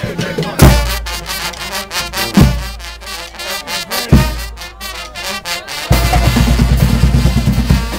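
Brass pep band playing: trumpets and trombones over drums. Heavy bass drum hits come about every two seconds, and the drumming turns to a busier steady beat near the end.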